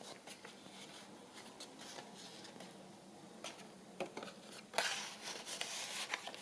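Paper and card stock rustling and scraping as a paper tag is handled and slid into a paper journal pocket, with soft clicks throughout and a louder sliding rustle about five seconds in.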